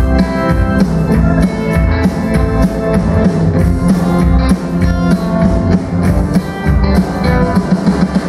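A live band playing: hollow-body electric guitar, double bass and drum kit over a steady drum beat.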